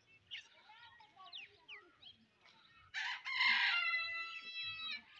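A rooster crows once, a loud call of about two seconds that starts about three seconds in. Before it, small birds chirp faintly.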